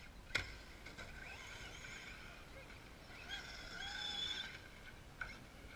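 Faint high whine of electric radio-controlled trucks' motors, gliding up and down in pitch as they speed up and slow down. A sharp knock shortly after the start and a softer one near the end.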